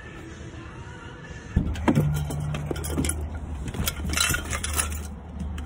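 Faint background hum for the first second and a half, then a cut to inside a car: a steady low hum with a run of sharp clicks, clinks and jangles from things being handled, such as keys and the phone.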